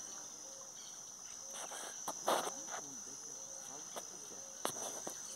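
Steady high-pitched insect chorus. About two seconds in there is a brief rustle, and a sharp click comes near the end.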